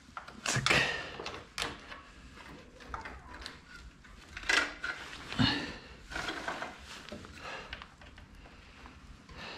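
Loose motorcycle roller chain clinking and rattling in irregular bursts as it is handled and fed onto the sprocket, with a few louder metallic knocks about a second in and around the middle.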